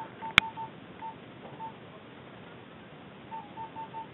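A sharp click about half a second in, among a series of short electronic beeps all at one pitch. The beeps come in irregular clusters, a few early and a quicker run of four near the end.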